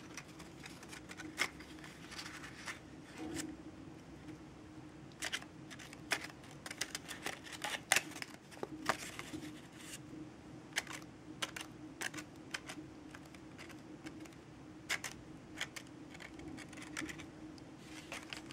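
Iridescent origami paper crinkling and crackling as hands open out and handle a folded clam shell, in irregular short crackles, over a steady low hum.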